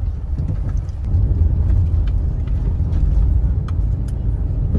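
Steady low rumble inside the cabin of a moving car: engine and tyre noise on the road.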